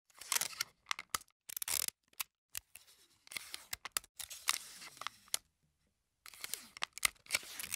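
Paper being handled: short, irregular bursts of rustling and tearing, with sharp clicks in between and brief silent gaps.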